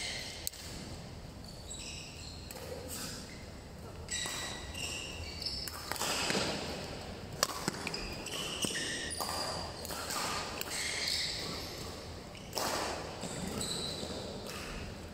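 Badminton rally: court shoes squeaking again and again on the sports floor, with a few sharp racket strikes on the shuttlecock, the clearest about halfway through.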